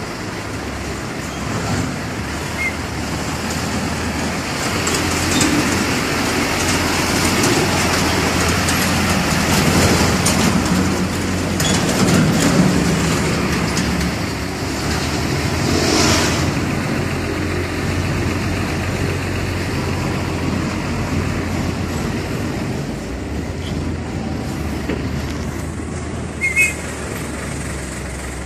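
Heavy diesel truck engine running with road noise, heard from inside a truck cab. The noise swells through the middle, with a brief louder burst about halfway through and a short sharp sound near the end.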